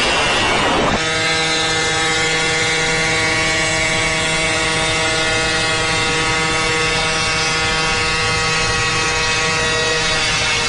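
Wind and road noise of travel at high speed, then from about a second in a steady engine drone held at one pitch, heard from inside a car's cabin.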